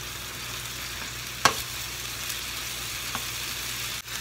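Beef and onion simmering in a soy, sugar and mirin sauce in a frying pan, a steady sizzle, while a metal ladle stirs through it. One sharp clink of the ladle against the pan about a second and a half in, and a fainter one later.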